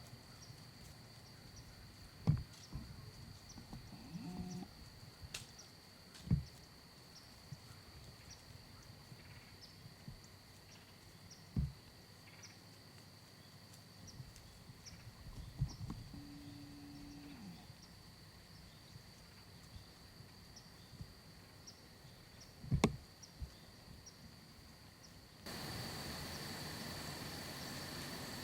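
Quiet woodland ambience with a faint, steady high insect-like hum. A handful of short soft thumps come several seconds apart, and the background gets louder near the end.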